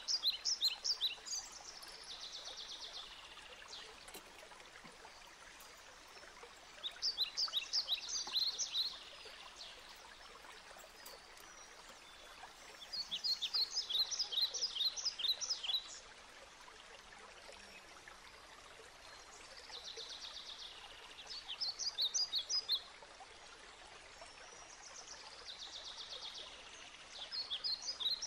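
A songbird singing a short phrase of quick high chirps and a trill, repeated about every six to seven seconds, over a steady soft hiss like running water.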